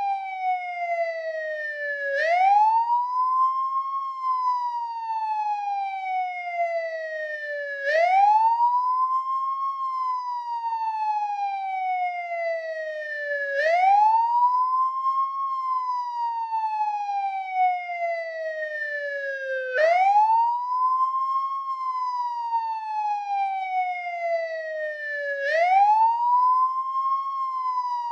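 American police car siren on the wail setting, a single tone that climbs quickly and then slides slowly back down, repeating about every six seconds.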